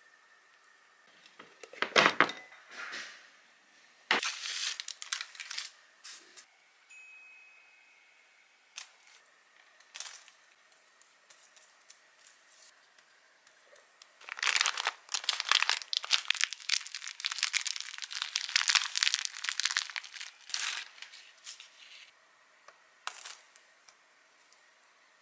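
Crinkling and rustling of something being handled, with scattered clicks and knocks; a long stretch of dense crinkling runs for about six seconds in the second half.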